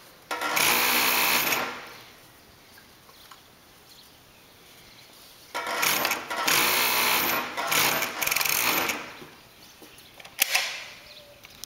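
Brother FD4-B277 three-needle coverstitch industrial sewing machine stitching in two runs, the first about a second long and the second about three seconds long, with a quiet pause between them. Two short, sharp sounds come near the end.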